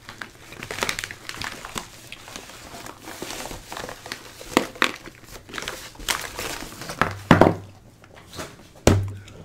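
Crinkling of a bubble-lined padded mailer and its plastic sleeve as a plastic electronics-kit storage case is slid out and handled, with a few knocks of the plastic case on a wooden table. The two loudest knocks come near the end.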